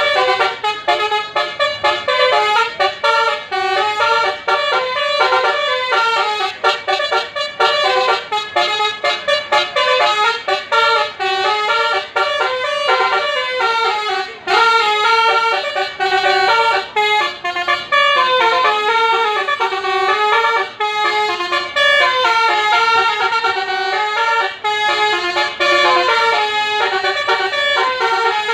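Multi-tone telolet bus horns playing a fast melody, the notes stepping up and down continuously with short breaks between them.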